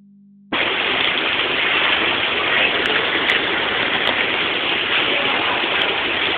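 Steady rushing of water pouring from a PVC return pipe into a sea turtle's tank. It starts about half a second in, after a brief low hum.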